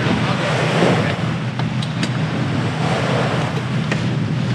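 Wind buffeting the microphone and water rushing along the hull of a sailboat under way at sea, a steady loud rush with a few short sharp clicks.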